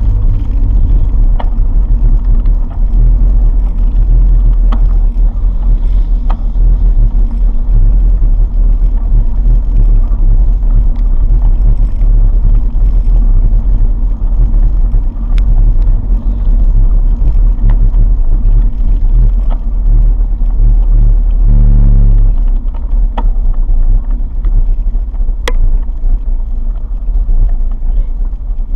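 Motor vehicle engine running with a loud, steady low rumble, with a few light clicks scattered through it.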